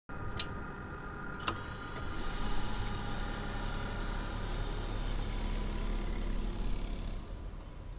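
Nissan minivan pulling away slowly over a grass field, its engine running and tyres rolling. The sound swells a couple of seconds in and fades near the end. Two sharp clicks come in the first second and a half.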